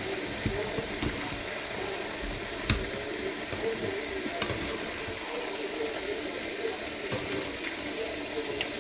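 Noodles sizzling in a hot frying pan as they are stir-fried and tossed. A few sharp clicks of the utensils against the pan.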